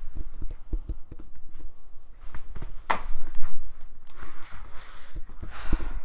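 Handling noise from a handheld microphone being carried about: irregular low thumps and knocks, with a sharp knock about three seconds in and rustling of cloth against the mic near the end.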